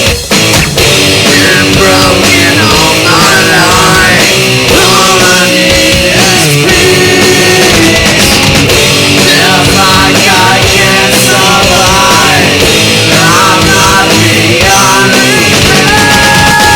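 Loud heavy rock music: distorted guitars and drums, with a melodic line bending in pitch over them that settles into a long held note near the end.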